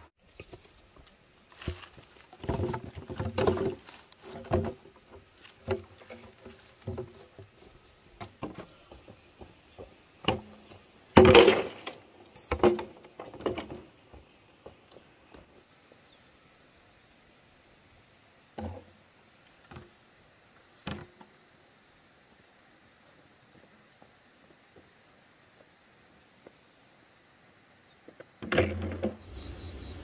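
Hollow knocks and clatters of bamboo poles being handled and dropped onto a pile, with the loudest clatter about eleven seconds in, then a few single knocks. Insects chirp faintly in the quieter second half.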